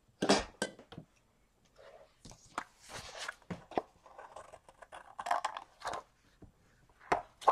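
Paper being handled and cut with scissors: irregular snips and short paper rustles, with the sharpest snips just after the start and near the end.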